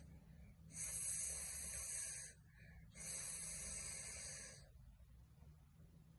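A woman imitating a snake's hiss, a drawn-out 'sss', twice, each hiss about a second and a half long.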